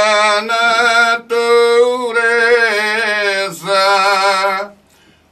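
Cante alentejano: a men's choir singing unaccompanied, long drawn-out notes with slow slides in pitch, with short breaks for breath. The singing stops near the end.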